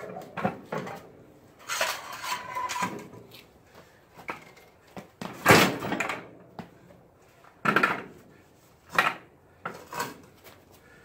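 Clunks and scrapes of a steel V snow plow blade being levered up with an ice scraper and worked onto wooden caster dollies: a handful of separate knocks, with a scraping stretch about two seconds in and the loudest knock about halfway through.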